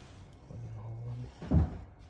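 One heavy dull thump about a second and a half in, a metal engine part knocked or set down on a workbench, after a short low hum.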